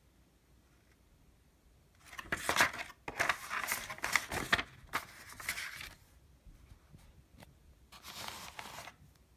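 Folded paper instruction sheet rustling and crackling as it is handled, starting about two seconds in and lasting about four seconds. Near the end comes a shorter crinkle from the anti-static bag around the modem card.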